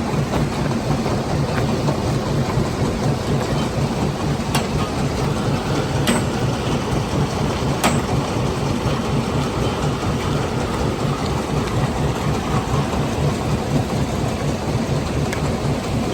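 Stone-crushing plant machinery running steadily, with a fast, even low pulsing under a dense rattling noise of rock and gravel, and a few sharp cracks of stone in the middle.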